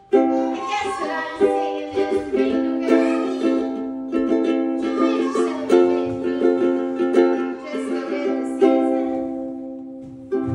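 A ukulele, freshly fitted with a new set of strings and just tuned, strummed in chords. One chord is left to ring and fade for about two seconds near the end before the next strum.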